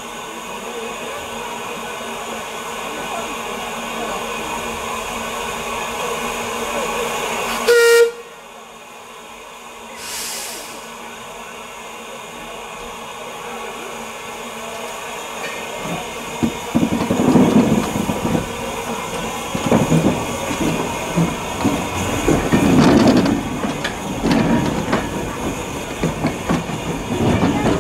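Andrew Barclay saddle-tank steam locomotive giving one short whistle blast about eight seconds in. From about sixteen seconds in come slow, uneven exhaust beats as the engine pulls away. Crowd chatter runs under the first part.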